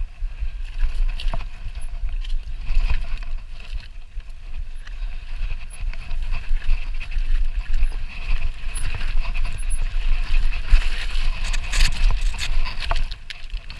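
Mountain bike rattling and clattering down a rough rocky path, tyres crunching over stones, with many short knocks that get busier in the second half. Wind buffets the camera's microphone throughout.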